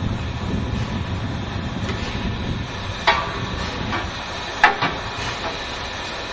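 Steady low rumble of locomotives standing in the yard, with sharp metallic clanks from work in the ash pit beneath the 0-8-0T tank engine: one about three seconds in and two close together a moment later.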